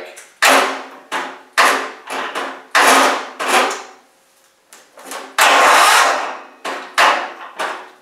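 Electric starter on a lawn tractor's 17 hp Tecumseh engine being tried again and again, about eight short knocks that each die away as the starter stalls without turning the engine over. It just can't get over the hump: the starter is stopped by too much compression.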